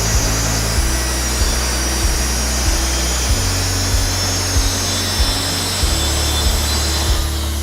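Festool track saw running and cutting through a board along its guide rail. The saw's noise fades out near the end as the cut finishes.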